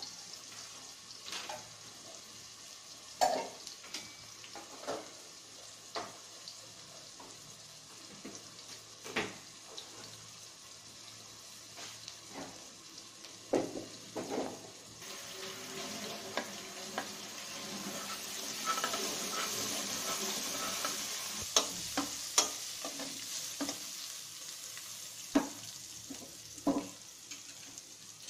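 Sliced onions and whole spices sizzling in hot oil in a metal pot, with a metal spoon stirring, scraping and knocking against the pot every few seconds. The sizzle swells for several seconds past the middle, then settles again.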